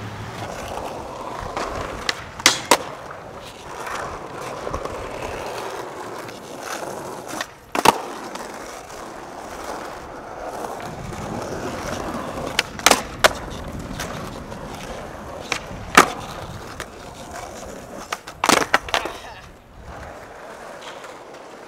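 Skateboard wheels rolling on concrete, broken by several sharp wooden clacks of boards popping and landing, spaced a few seconds apart.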